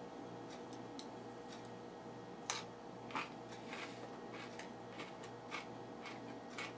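Eating sounds: scattered light clicks of a metal spoon against a plastic food tray and teeth while chewing, the loudest click about two and a half seconds in, over a steady faint hum.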